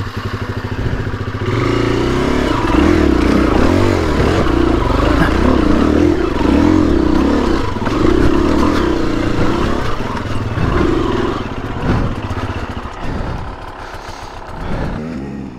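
Dirt bike engine revving up and down under load as the bike works over rock. It is loudest through most of the stretch and drops off near the end.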